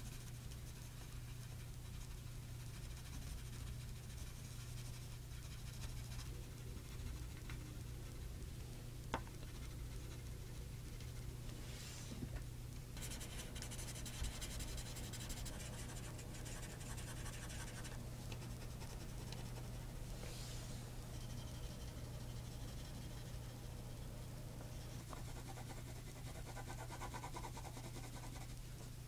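Pencil scratching and shading on paper, in strokes that come and go, over a steady low hum. A single sharp click about nine seconds in.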